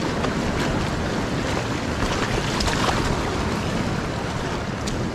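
Sea waves washing over and around rocks on the shore, a steady rushing noise.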